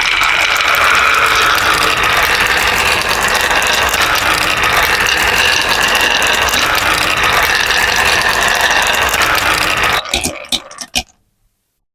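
Many marbles rolling and clattering together down a marble-run track in a dense, continuous rattle. About ten seconds in, it thins to a few last separate clicks and stops.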